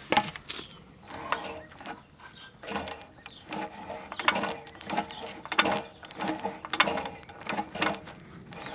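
Small single-cylinder flathead engine of a 1950s Toro Sportlawn reel mower being turned over slowly by hand with its cylinder head off, giving a regular mechanical clicking about one and a half times a second. The stuck exhaust valve has just been freed with oil and is working again.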